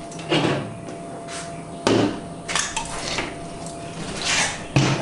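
Stihl RB 200 pressure washer being tipped up on end on a table: its frame and wheels clunk and knock several times, with a sharp clank about two seconds in and another near the end.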